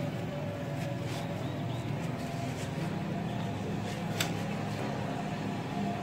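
Steady low background rumble, with one sharp click a little after four seconds in.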